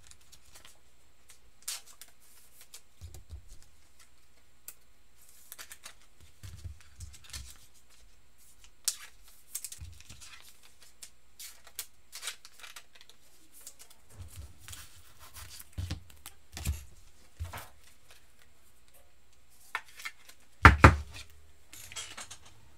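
Trading cards and plastic card sleeves being handled: scattered rustles, slides and light clicks, with one louder thump near the end.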